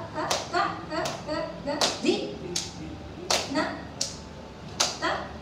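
Hand claps keeping the tala, one about every three-quarters of a second, with rhythm syllables recited between the claps as a Carnatic laya exercise.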